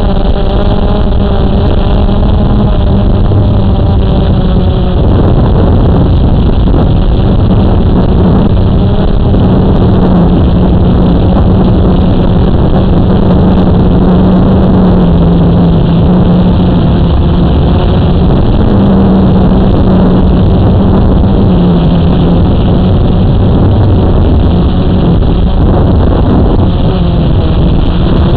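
Blade 350 QX quadcopter's brushless motors and propellers, a loud steady buzz whose pitch wanders a little as it holds position and drifts, picked up close by the drone's own onboard camera.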